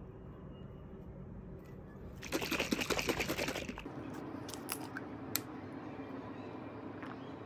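Plastic bottle of glucose tolerance drink being handled and opened: about a second and a half of rapid crackling and rustling as the screw cap is worked, then a few sharp single clicks as the plastic cap is set down on the table.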